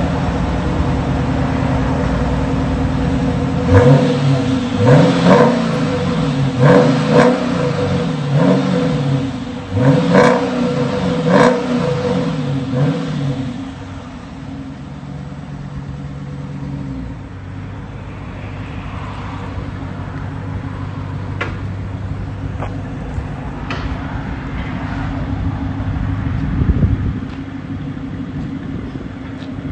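Exhaust of a Chrysler 300S 5.7-litre HEMI V8 with a mid-muffler delete (factory catalytic converters, X-pipe and rear mufflers kept). It idles, is revved in about six quick blips from a few seconds in, then settles back to a steady idle that turns lower and quieter past the middle.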